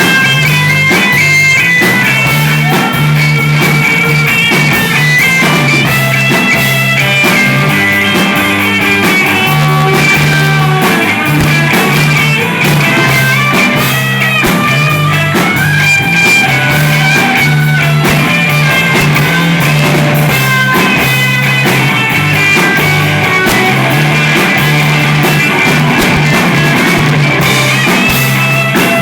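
Instrumental rock music with guitar, bass and drums, with a repeating bass line and a guitar melody over it.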